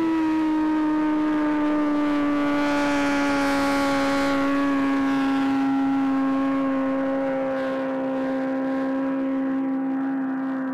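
A turbocharged Suzuki Hayabusa land-speed motorcycle running flat out at high revs: one steady high engine whine that slowly drops in pitch, with a rush of wind noise a few seconds in, and then fades slightly near the end.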